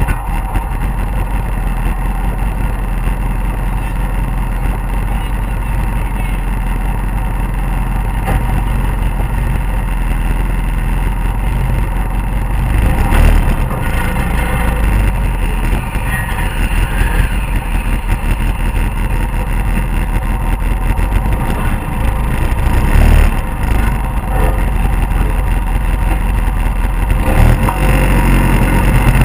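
Polaris RZR 800 S side-by-side's twin-cylinder engine running under way, heard from inside the open cab together with wind over the microphone, with a few louder surges as it speeds up.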